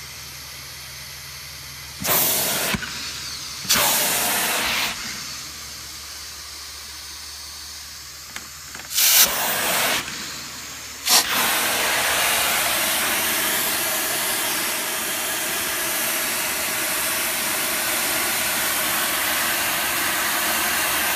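Carpet-cleaning extraction wand on carpet, its vacuum hose pulling air and water through the floor tool: short loud hissing rushes about two, four, nine and eleven seconds in over a low steady machine hum, then steady loud hissing suction from about eleven seconds on.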